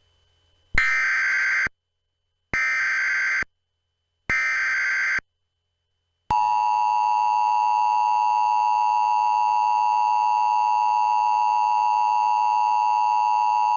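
Emergency Alert System-style alert: three short screeching digital header bursts, each just under a second long and about two seconds apart. Then, from about six seconds in, a long steady alert tone.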